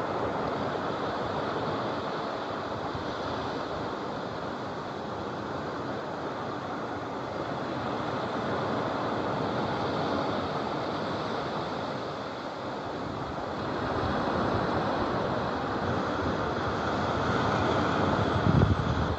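Surf breaking on a sandy shore, a steady wash of noise that swells and eases. Near the end, wind buffets the microphone in a brief low rumble.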